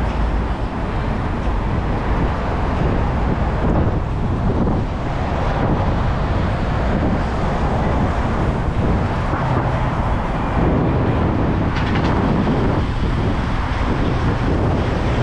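Steady rush of road traffic noise mixed with wind buffeting the microphone of a cyclist's helmet camera.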